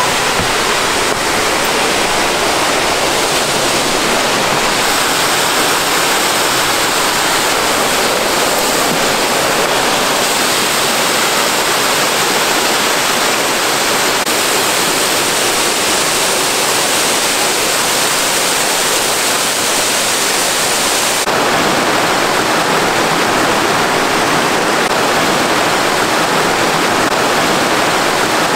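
Rushing water of a rocky mountain creek cascading over boulders, a steady hiss. The sound changes slightly about five seconds in and again about two-thirds of the way through.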